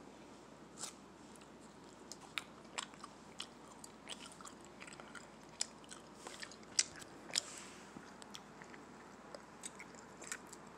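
A person chewing bubble gum: irregular wet clicks and smacks from the mouth, the loudest a little past the middle.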